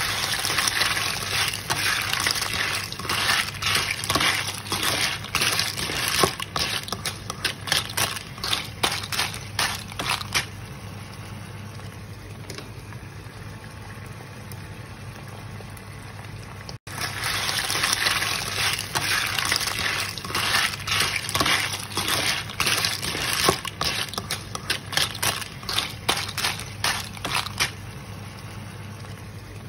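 Small clams sautéing in a hot non-stick wok with tomato and onion: a steady sizzle with rapid clicking and clattering of shells as they are stirred. The clatter dies down after about ten seconds, leaving a quieter sizzle. It breaks off briefly around the middle, and then the sizzle and clatter start again and settle the same way.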